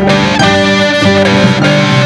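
Country rock band music, with a Fender Stratocaster electric guitar playing a lead line of held notes that change every fraction of a second.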